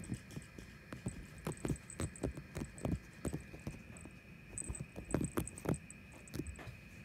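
Kittens play-fighting on a fabric sofa: irregular soft thumps and scuffles of paws and bodies against the cushion and clothing, several a second at times. A faint steady high-pitched hum runs underneath.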